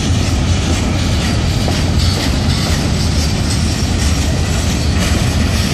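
Boxcars of a Florida East Coast Railway freight train rolling past, their steel wheels running on the rails with a loud, steady noise.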